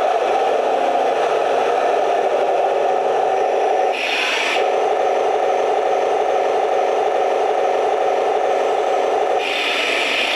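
1:16 scale Taigen RC tank driving on a concrete floor: a steady scraping, rubbing run of its geared drive and tracks. About four seconds in, and again near the end, the sound turns briefly higher and hissier.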